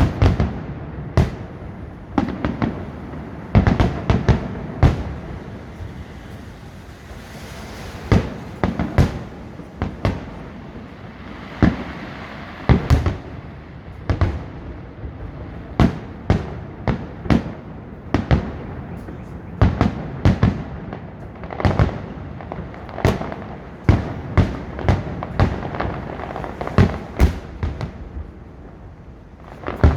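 Fireworks display: aerial shells bursting in an irregular string of sharp bangs, often one to three a second, with a couple of short lulls.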